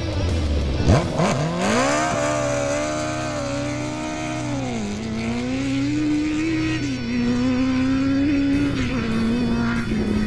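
Straight-piped 2003 Suzuki Hayabusa inline-four engine, revved in two quick blips, then launching and pulling hard through the gears. The pitch climbs and holds, then drops at each upshift, three times.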